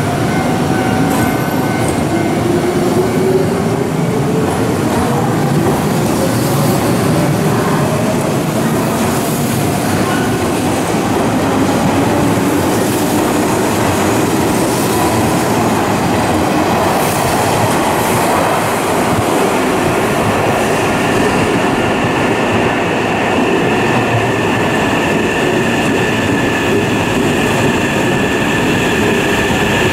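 Hanshin 8000-series electric train accelerating out of an underground station. Its motor whine climbs steadily in pitch over most of the pass, over loud wheel and rail noise, and steady high-pitched tones come in during the last third.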